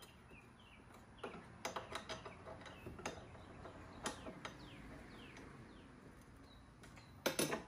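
Faint scattered metallic clicks and ticks of a hand tool working the frame-mount bolts on a go-kart frame, a little louder near the end, with a few faint bird chirps.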